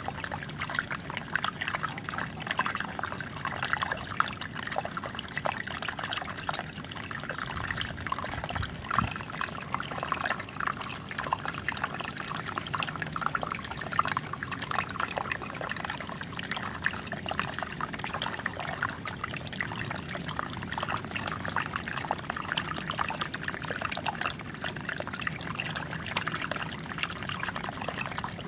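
Small waterfall running steadily: water trickling and splashing into a pool.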